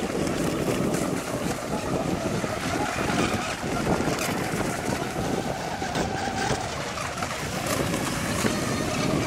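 Wind buffeting the microphone, over the faint, steady whine of electric radio-controlled racing catamarans running out on the water.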